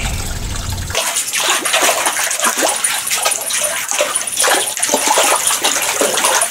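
Shallow stream water running and splashing, with many small irregular splashes, starting about a second in.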